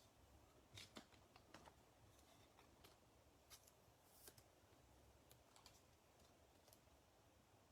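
Near silence with faint, scattered clicks and light rustles of trading cards being handled and shuffled.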